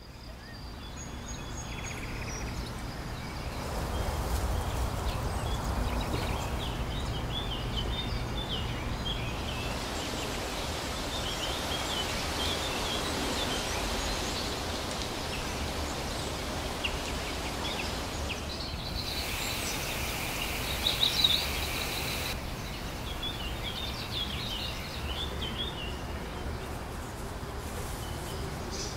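Outdoor ambience: several birds chirping and singing over a steady low background noise, fading in at the start. About twenty seconds in there is a brief burst of louder, busier birdsong.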